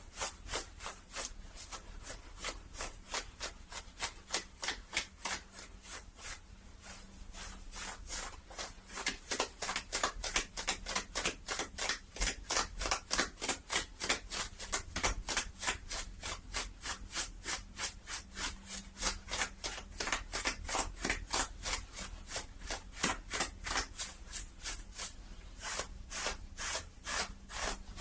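Fabric being rubbed close to the microphone in quick, even back-and-forth strokes, about three to four a second, with a dry scratchy texture.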